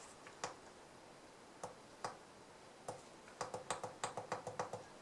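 Faint clicks of the JINHAN JDS2023 handheld oscilloscope's keypad button being pressed to step a measurement cursor: a few single presses, then a quick run of about eight presses a second in the second half.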